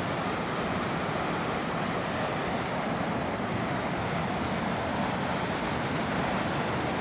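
Steady rushing of a river in full flood, the Black Fork River's fast floodwater running without a break.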